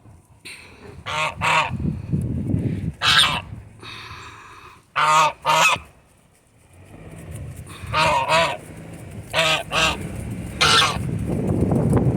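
Domestic gander honking, about eight loud calls spaced a second or two apart, over a low rumble that grows louder in the second half.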